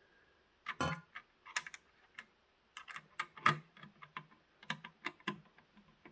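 Irregular small metal clicks and taps of a number one Phillips screwdriver turning a screw into a CPU cooler's metal mounting bar, with a louder clatter about a second in.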